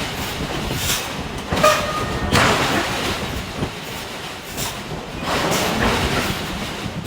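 Forge-shop machinery noise: a hydraulic forging hammer striking at irregular intervals over a steady industrial din, with a brief high metallic squeal about a second and a half in.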